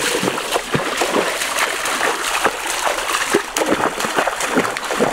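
Shallow stream water splashing as legs wade and kick through it, a run of irregular splashes and sloshes.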